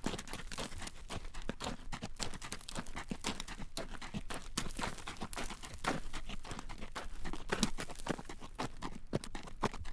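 Hooves of a horse drawing a carriage clip-clopping at a walk on a road: a steady run of sharp hoof clacks.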